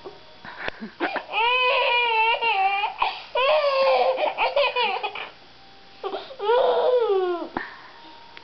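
Baby laughing: three long, high-pitched laughs with a wavering pitch, a short break after the first and a longer one before the last.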